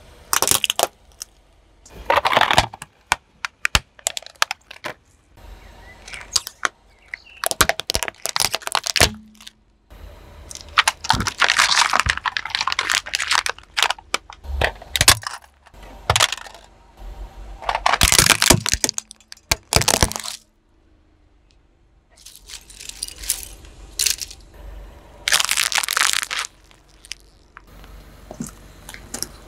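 A car tyre rolls over and crushes small plastic toys, plastic bags of water beads and plastic jelly cups. This gives series of sharp cracks, crunches and pops in several separate bursts, with short quiet gaps between them.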